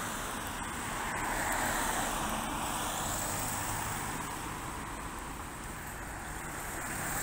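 Cars driving past one after another, a steady rush of tyre and engine noise that swells as each passes close by.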